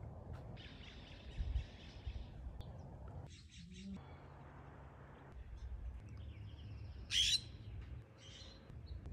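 Small songbirds chirping in short, separate calls a few seconds apart, the loudest about seven seconds in.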